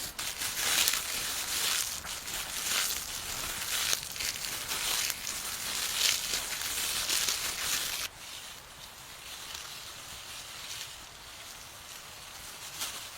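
Rustling and crunching in irregular bursts for about eight seconds, then cutting off suddenly to a faint rustle.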